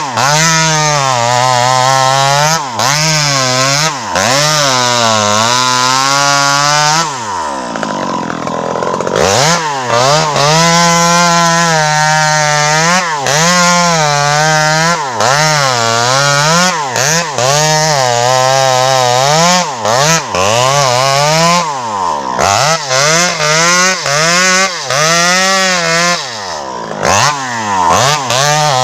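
Home-assembled 52cc chainsaw cutting into a tree trunk during felling, its engine speed rising and falling as the chain works through the wood. About seven seconds in the engine pitch sags low for a couple of seconds, then climbs back up.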